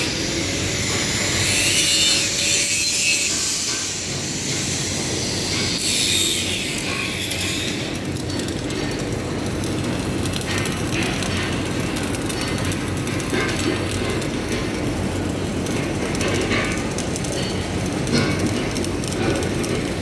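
Electric arc welding on steel: the arc crackles and sputters steadily as a bead is run. Over the first several seconds there is a brighter hiss.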